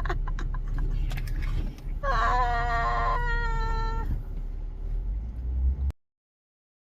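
A single drawn-out, meow-like animal call about two seconds in, rising at the start and then held for about a second, over a steady low rumble with a few light clicks before it.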